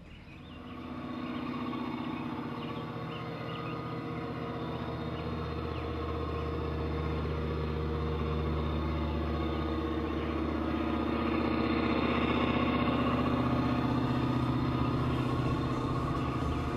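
Diesel locomotive engines of the California Zephyr's cab units running under power. The deep, steady hum comes in about a second in and grows gradually louder as the train passes.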